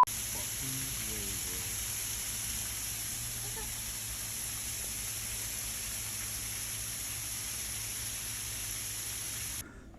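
Steady hiss of heavy rain, even throughout and strongest in the high range, cutting off suddenly near the end.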